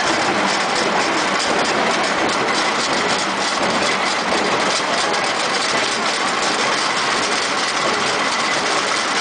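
TLHQ-1300 roll-to-sheet paper cutting machine running, a steady loud mechanical noise with a faint high steady whine.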